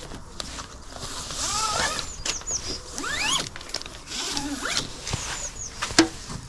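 Nylon ratchet-strap webbing being pulled through and around a roof rail and dragged over the car roof: a rasping slide with several rising squeaks. There is one sharp knock about six seconds in.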